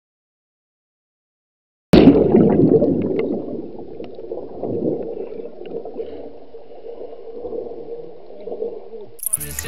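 Silence, then about two seconds in a sudden splash as the camera plunges into the water, followed by muffled underwater rumbling and bubbling with a steady hum, loudest at the plunge and easing off after.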